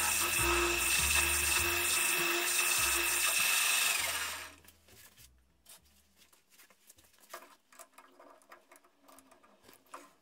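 Metal lathe running with a steady high whine while a centre drill in the tailstock chuck drills the end of a metal bar. The sound cuts off about four and a half seconds in, leaving only faint clicks.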